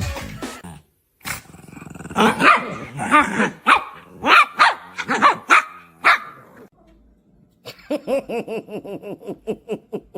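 A dog barking and growling in a string of short pitched calls for a few seconds, then a quick run of shorter rhythmic calls near the end.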